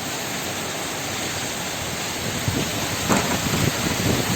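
Heavy rain pouring steadily, with wind. From about halfway through there are irregular low thumps, the sharpest about three seconds in.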